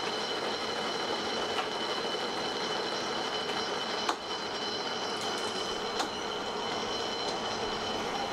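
Japanese level-crossing alarm ringing steadily as the Kintetsu Ikoma Cable's cat-shaped funicular car approaches and passes, with a few sharp clicks from the car on the rails.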